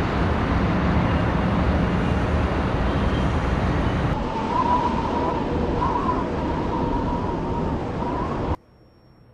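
Loud rushing roar of a burning object plunging through the sky. About four seconds in it changes, with a faint wavering whine over it, and it cuts off abruptly near the end.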